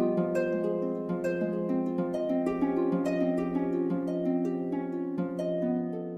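Background music: harp-like plucked notes in a quick, flowing pattern over sustained tones.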